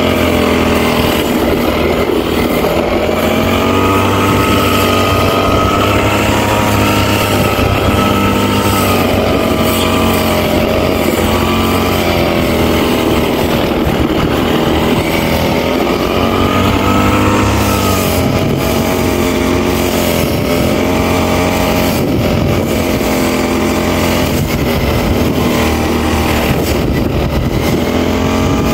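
Engine-powered brush cutter running steadily, its engine speed rising and falling slowly as it works through grass.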